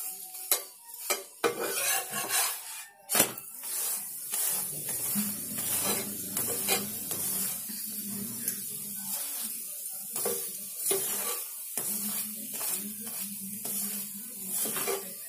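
Metal spatula scraping and tapping on a dosa tawa while a poli fries in ghee with a steady sizzle. There is a sharp clack about three seconds in.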